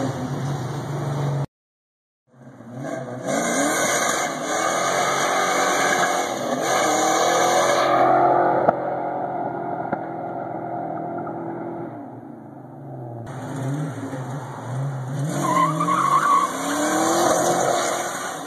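A Fox-body Ford Mustang doing a burnout: the engine revs up and down over and over while the rear tyres squeal and scrub. The first second and a half is a different car driving, cut off by a brief dropout before the burnout starts.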